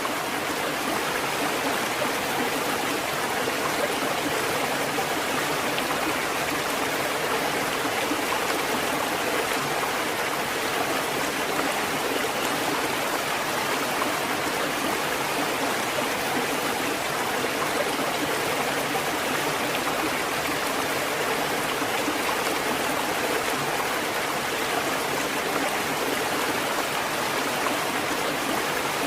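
Water fountain running: a steady, even splashing of falling water that holds at one level without breaks.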